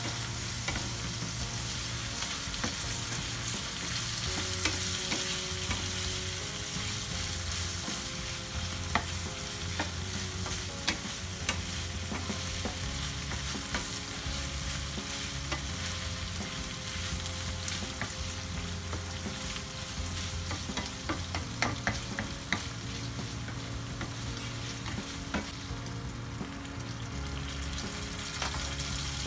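Chicken liver sizzling as it fries in a pan, stirred with a wooden spatula that clicks and scrapes against the pan again and again.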